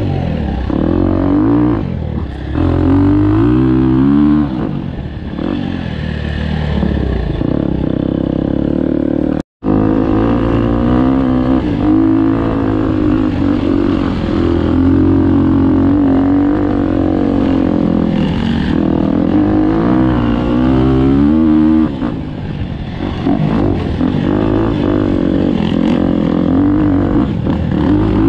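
Dirt bike engine revving up and down as it is ridden along a dirt trail, its pitch climbing and falling with throttle and gear changes, with other dirt bikes riding nearby. The sound cuts out for an instant about nine seconds in.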